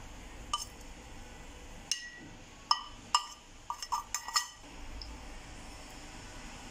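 A spoon clinking against the rim of a container while a powder is spooned into a bowl of flour: a few scattered clinks, then a quick run of five or six about four seconds in.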